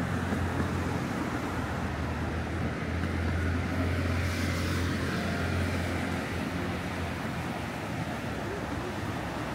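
Road traffic along a seafront street: a steady low engine hum that drops away about six seconds in, over a constant wash of passing cars, with one vehicle swishing past about four to five seconds in.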